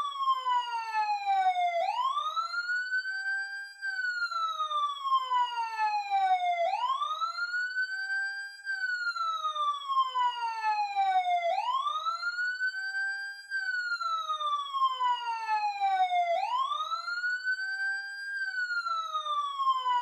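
Emergency siren wailing: the pitch climbs in about two seconds, then slides slowly down over about three, in a cycle that repeats about every five seconds.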